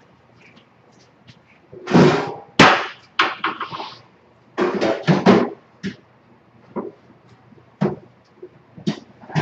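Irregular knocks and clatters of containers being moved about in a refrigerator, the loudest about two to three seconds in, with more scattered through the rest.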